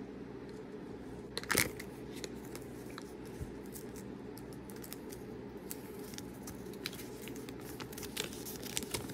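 Small folded paper leaflet being handled and unfolded, crinkling, with scattered short clicks and ticks, the loudest about a second and a half in. A steady low hum runs underneath.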